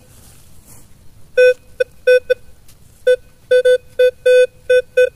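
Metal detector beeping: a string of about a dozen short, uneven beeps at one steady pitch, starting about a second and a half in, as the coil is swept over the dig. The beeps signal a metal target still in the hole.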